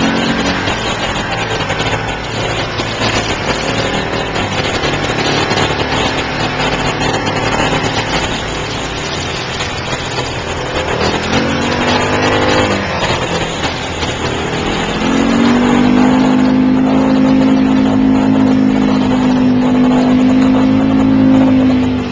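Off-road side-by-side engine running under load while driving through a shallow creek, with water splashing. The engine revs up and down about halfway through, then holds a steady, louder drone over the last several seconds.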